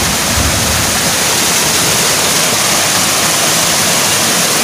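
Shallow forest stream rushing and splashing as it pours over logs and debris in a small cascade, a steady, unbroken rush of water.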